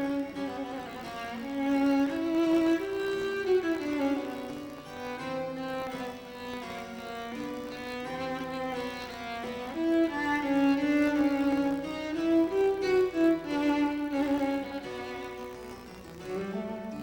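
Background music: a slow string melody of violins and cellos, with sustained bowed notes.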